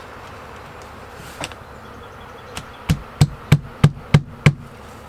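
Six quick taps of a 6-pound sledgehammer on a folded sheet of paper, about three a second, pressing the crease flat.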